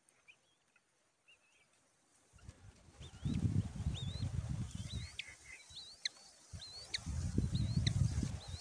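Short, high bird chirps, each a quick rising sweep, repeated every half second or so, over a low rumbling noise that comes in about two and a half seconds in after a nearly silent start.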